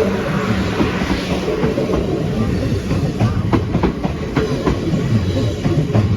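A train passing close by over the level crossing: a low rumble, with the wheels clicking over the rail joints in a quickening series of sharp clacks from about halfway through.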